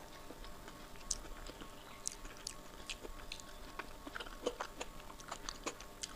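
Close-miked wet chewing and sharp mouth clicks, several a second, from eating rice with kadhi (yogurt curry), along with soft squishing of fingers mixing the rice and curry on the plate.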